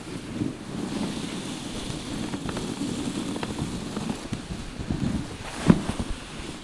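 Wind buffeting the microphone on a moving dog sled, over a steady rumble of the sled's runners on snow. There are a few faint knocks, and one sharp knock near the end.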